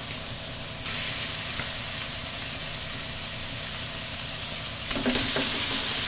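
Raw bone-in chicken pieces sizzling as they go into hot oil and browned onion paste in a metal kadai. The sizzle is steady, steps up a little about a second in, and gets clearly louder about five seconds in as more pieces drop into the pan.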